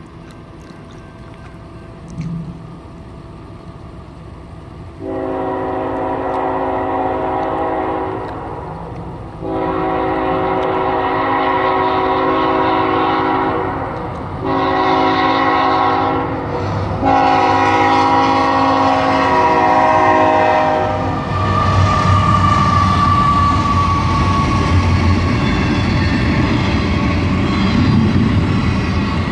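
CSX freight locomotive's multi-chime air horn sounding the grade-crossing signal as the intermodal train approaches: two long blasts, a short one, then a final long one. Then the lead diesel locomotives and the train roll past close by with a loud, steady rumble.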